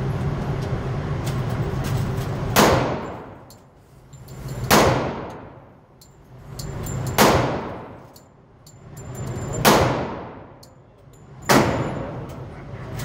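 Five pistol shots fired slowly, about two to two and a half seconds apart, each sharp crack ringing out in an enclosed indoor range. They are preceded by a couple of seconds of steady noise.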